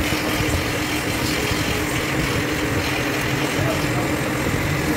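A machine running steadily, a constant hum with a steady drone, with voices faintly in the background.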